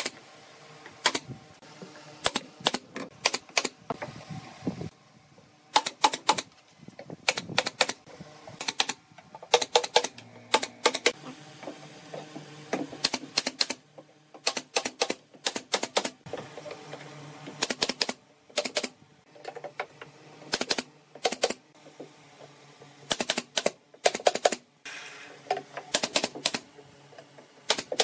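Pneumatic nail gun firing nails into pine pallet boards: sharp clacks in quick runs of a few shots, with short pauses between runs.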